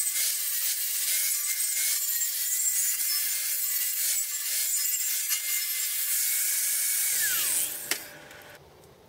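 Angle grinder running with a steady high whine and grinding hiss as it works the welded steel motor bracket. About seven seconds in it is switched off, its pitch falling as it winds down, followed by a single click.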